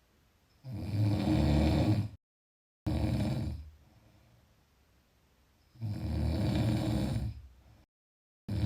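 A person snoring: two long, rattling snores about five seconds apart. The first is followed closely by a shorter snore, and another snore begins at the very end.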